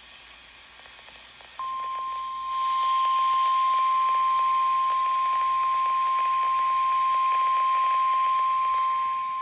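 NOAA Weather Radio 1050 Hz warning alarm tone: a single steady high-pitched tone that starts suddenly about a second and a half in and holds unchanged over radio hiss. It signals that a warning message is about to be broadcast.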